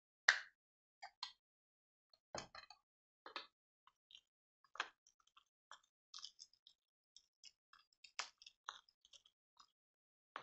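Crumpled shiny packaging wrapper handled in the fingers: faint, irregular crackles and clicks, a few a second.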